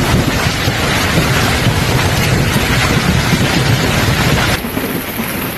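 Severe storm: a loud, dense, steady rush of heavy precipitation with wind on the microphone. About four and a half seconds in it cuts abruptly to a quieter, duller stretch of the same storm noise.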